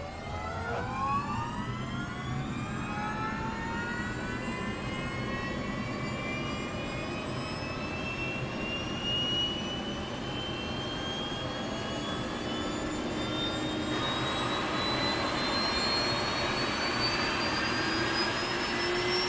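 Jet engine spooling up: a turbine whine climbing steadily in pitch over a rushing roar that grows a little louder.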